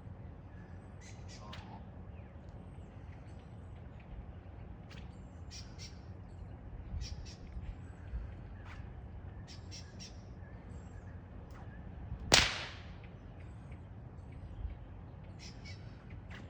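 A single loud whip crack about twelve seconds in, with short high bird chirps here and there before and after it.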